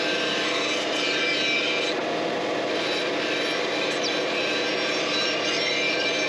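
Bandsaw running steadily while its blade cuts lengthwise along a wooden axe handle blank, shaving material off the sides. The cutting noise comes in stretches, dropping back to the running saw for a moment about two seconds in and again about four seconds in.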